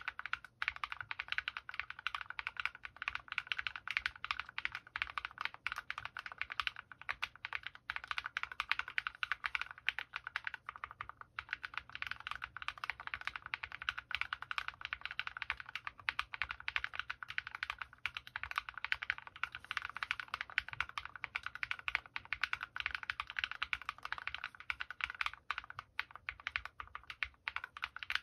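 Continuous fast typing on a DROP+OLKB Planck V6 ortholinear mechanical keyboard with lubed linear switches (MX Black housings with Kailh Red stems), foam-dampened and fitted with MT3 profile keycaps: a dense, steady stream of key clacks.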